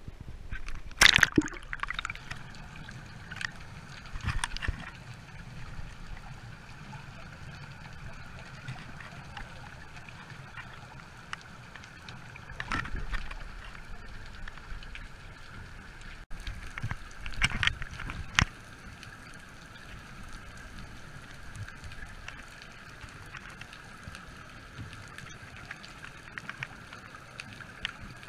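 Water sloshing and gurgling around a snorkeler's camera at and just below the surface, with a few louder splashes, over a steady hiss.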